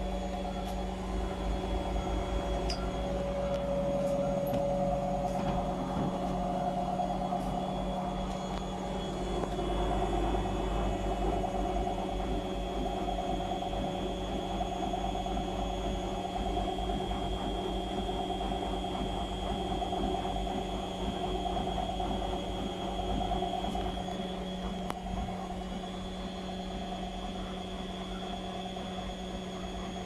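Whirlpool FL 5065 front-loading washing machine running its 600 rpm spin with an unbalanced load: a steady motor whine with several held tones over a low rumble.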